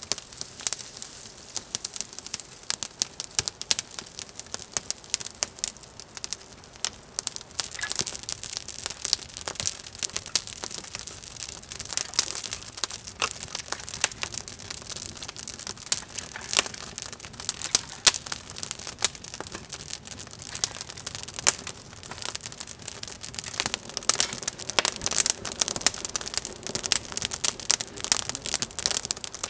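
Campfire of dry twigs and split kindling burning up, crackling with a dense, irregular run of sharp pops and snaps.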